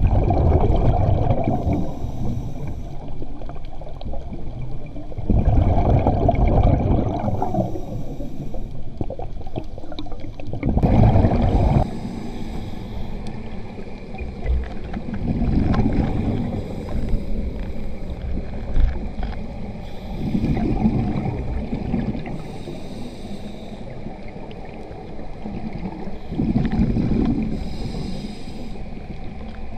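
Scuba diver breathing through a regulator underwater: a burst of exhaled bubbles rumbles about every five seconds, with a short higher hiss between the bursts.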